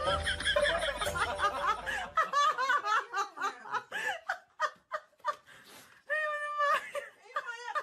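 A person laughing in short repeated bursts.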